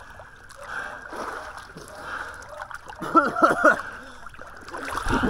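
Swimming pool water splashing and sloshing as people move in it.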